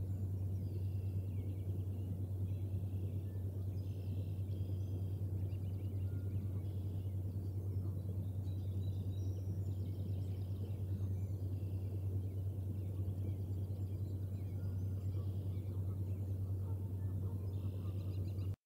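Outdoor nest-cam ambience: distant birds calling and singing in short repeated trills throughout, over a steady low hum. The sound cuts off suddenly at the very end.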